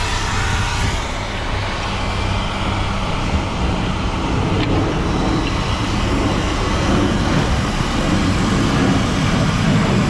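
Motor vehicle engine running steadily, a low hum that grows somewhat louder in the second half, with one faint click about four and a half seconds in.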